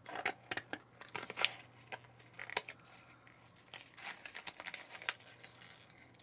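Scissors snipping through a thin plastic candy-kit mold tray: a run of irregular sharp snips with crinkling of the stiff plastic.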